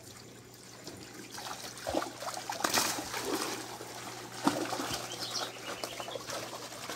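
Water splashing and trickling as tilapia thrash in a seine net hauled against the wall of a fish tank, with sharp splashes about two, three and four and a half seconds in. A steady low hum runs underneath.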